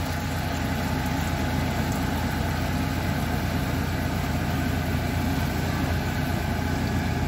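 Chicken broth with sautéed onion and celery bubbling in a pot on the stove, a steady rumble with an even hiss as it heats toward a boil.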